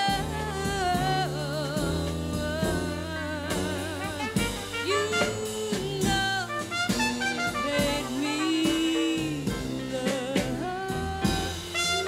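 Small jazz band playing live: a woman singing with vibrato, backed by trumpet, bass and drums.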